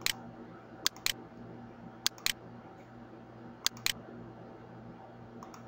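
Computer mouse button clicking: about three quick press-and-release pairs, each pair a fraction of a second apart, as the eraser tool is worked. A low steady hum runs underneath.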